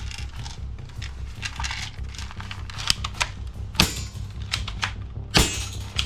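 Plastic toy guns clicking and snapping as they are handled and fired, with two sharper, louder shots in the second half, over background music with a steady bass.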